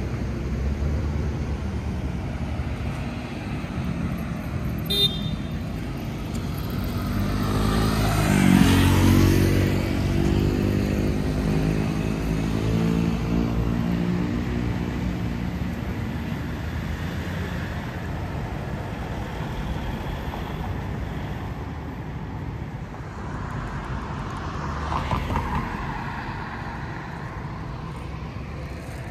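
Night road traffic: a steady rumble of passing vehicles. About eight seconds in, one vehicle passes close, its engine note swelling and then fading. A short high beep comes about five seconds in, and another vehicle passes less loudly near the end.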